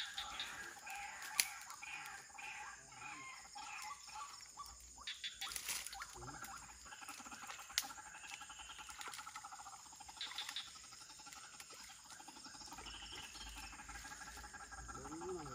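White-breasted waterhens calling, a run of repeated notes over the first few seconds, over the faint trilling of night insects that turns into a fast pulsing buzz in the middle. Two sharp clicks stand out, one early and one about halfway.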